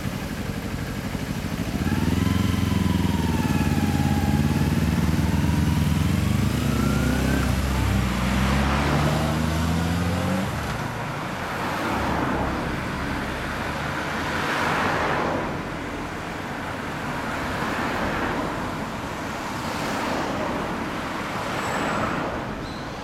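A Kawasaki Ninja 250R parallel twin with an r's gear Wyvern aftermarket muffler and a Honda CBR600RR inline four idle, then about two seconds in pull away together, the engine note rising and dropping as they go up through the gears. After about ten seconds the bikes fade and other road traffic passes, a vehicle going by every two or three seconds.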